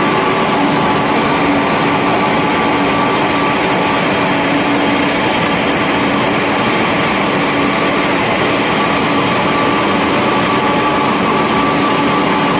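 Pellet mill machinery running: a loud, steady industrial drone from the large electric drive motors and the mills, with a constant low hum and a higher whine over it.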